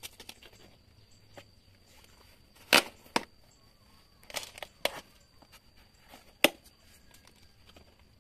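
Old plastic plant pot, already cracked after two years' use, snapping and crackling as its wall is pried away from the root ball by hand: about five sharp cracks spread over several seconds, with faint clicks between.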